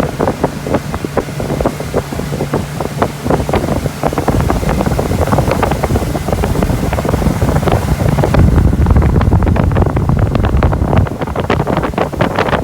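Wind buffeting the microphone on a moving motorboat, over the drone of its engine. The low wind rumble swells about two-thirds of the way through.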